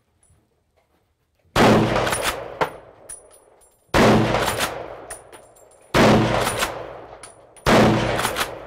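Blaser R8 straight-pull rifle firing four shots about two seconds apart, each crack fading out in a long echo. Sharp metallic clacks follow each shot as the straight-pull bolt is cycled for the next round.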